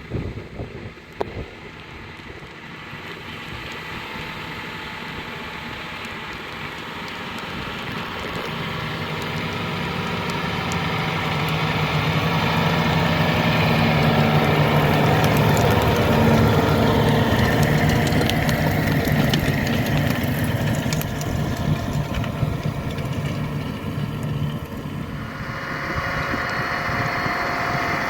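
John Deere 6R 250 tractor's six-cylinder diesel running steadily under load while pulling a reversible plough through stubble. It grows louder as it approaches, is loudest about halfway through, eases off a little, and its note changes near the end.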